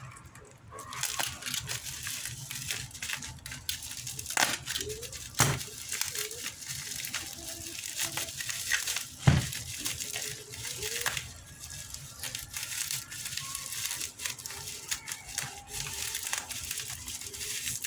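Parcel packaging being handled: plastic crinkling and rustling with bits of tearing, and one sharp knock a little past the middle.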